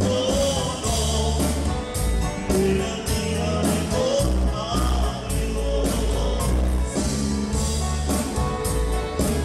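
Live cumbia band playing, with bass and drums keeping a steady dance beat and singing over it.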